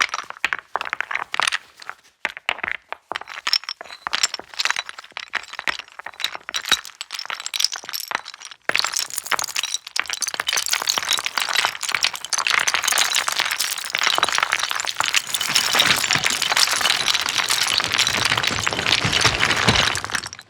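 Stones knocked and scraped together as foley for someone sliding and falling down a slope of flat stones. Separate clacks at first, then from about nine seconds in a dense, continuous clatter of stones grinding and tumbling. It cuts off suddenly at the end.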